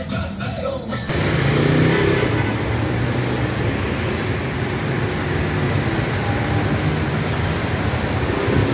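Background music for about the first second, then an abrupt cut to steady city street traffic noise from passing cars.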